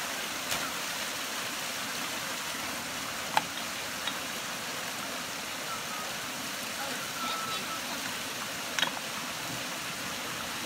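Creek water spilling over a low rock ledge in a small cascade, a steady rush, with a few sharp clicks, the loudest about three and a half seconds in.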